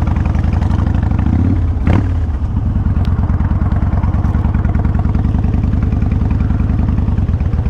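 Kawasaki Vulcan 1500 Classic's V-twin engine running at low road speed, a fast even beat picked up close by a helmet-mounted microphone. A single sharp click comes about two seconds in.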